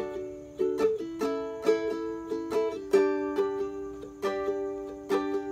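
Ukulele strummed in a steady pattern of a few strokes a second, its chords ringing on between strokes.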